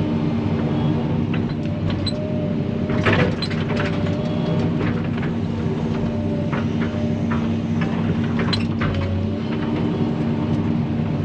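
Excavator's diesel engine running steadily under hydraulic load while the bucket digs into soil, heard from inside the cab. A few short sharp knocks of the bucket stand out about three seconds in and again past eight seconds.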